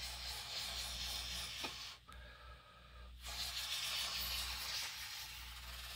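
Glue being squeezed out of a squeeze bottle onto a plastic disc, a soft hissing in two stretches with a break about two seconds in.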